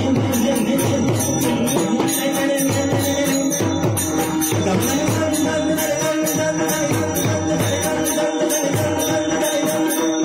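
Chakri bhajan devotional music: small hand cymbals (tal) struck in a rapid, even rhythm over sustained held tones, without a break.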